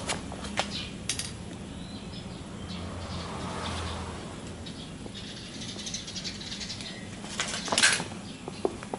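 Handling noise of an Aqualung Axiom scuba BCD: nylon fabric and straps rustling, with scattered small clicks and a louder burst of rattling about eight seconds in.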